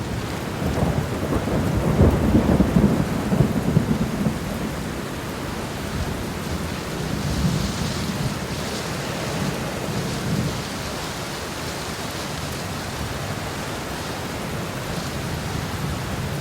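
Steady rain falling, with a low rumble of thunder swelling in the first few seconds and then easing off.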